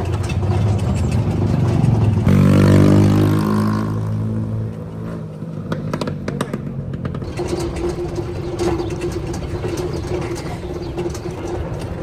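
Vehicle engine running, revving up about two seconds in, then settling to a steadier run with scattered clicks.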